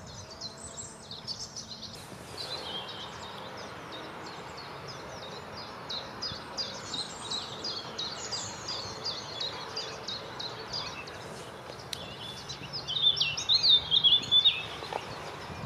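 Small songbirds chirping and singing, a continuous stream of short high notes, loudest and busiest in a quick run of calls near the end.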